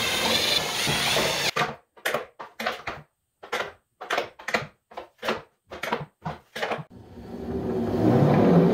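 Cordless impact driver hammering as it drives a bolt into plywood, stopping about a second and a half in. This is followed by a quick string of about a dozen short, sharp noises with silence between them. Music fades in near the end.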